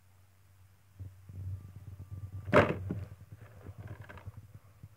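Shrink-wrapped plastic DVD case being handled and turned over in the hand: crinkling and rubbing of the plastic wrap, with one sharp knock about two and a half seconds in, the loudest sound. A low steady hum runs underneath.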